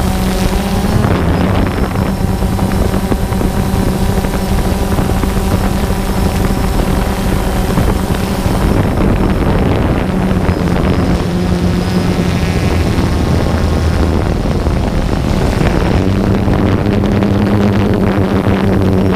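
DJI Phantom 2 quadcopter's motors and propellers buzzing steadily in flight, close to the microphone, the pitch shifting slightly up and down a few times as the motors change speed.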